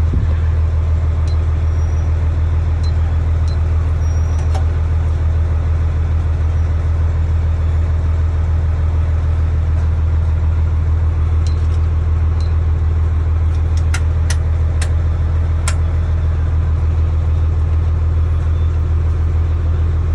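Fire truck's diesel engine idling steadily, a deep even rumble, with a few faint clicks about two-thirds of the way through.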